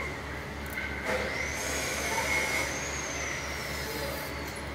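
Fine-toothed wooden comb being drawn through long, oiled hair over a steady low hum. From about a second in, a faint high whistle rises and then slowly falls away.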